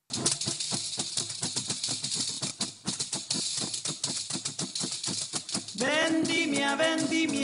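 Dense, irregular hand clapping for about six seconds, then a group of voices starts singing about six seconds in.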